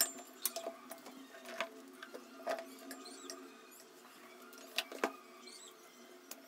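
Light, irregular taps and clicks of a tablet in a hard case being handled and set down on a desk, with a charging cable plugged into it; a sharper pair of clicks comes about five seconds in.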